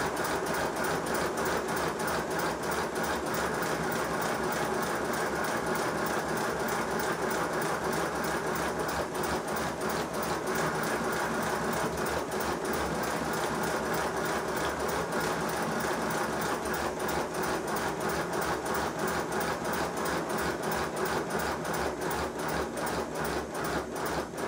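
5-inch gauge model GWR pannier tank locomotive running on compressed air on a rolling road: a rapid, even beat of exhaust and clatter from the motion, slowing near the end. The engine is being tested for a fault its owner puts down to suspension that is too soft, leaving it sitting too low on its axles.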